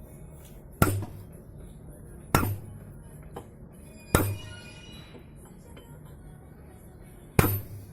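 A hammer striking steel at the wheel hub four times, each blow sharp and ringing briefly, the blows one and a half to three seconds apart.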